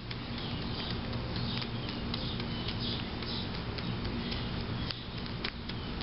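Irregular clicks of mourning doves pecking seed from a plate, with faint short bird chirps, over a steady low hum.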